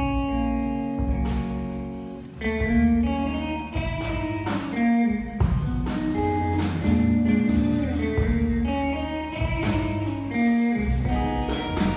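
Live jazz guitar trio: a Telecaster-style electric guitar plays a melodic line of single notes and chords over bass and drums.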